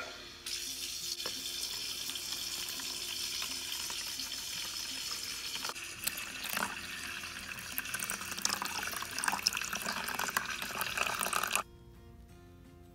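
A stream of water pouring and splashing into a small plastic toy bathtub as it fills for a bubble bath. It runs steadily, changes a little about six seconds in, and cuts off suddenly shortly before the end.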